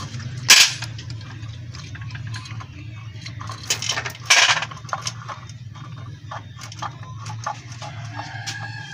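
Metal clinks and knocks as the cylinder block of a 100cc motorcycle engine is worked loose and slid off its studs over the piston by hand, with two sharp clanks about half a second and about four and a half seconds in. A rooster starts crowing near the end.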